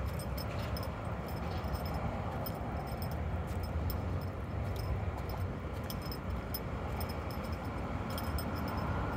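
Steady outdoor background noise: a low rumble with a hiss over it, and faint, scattered light ticks.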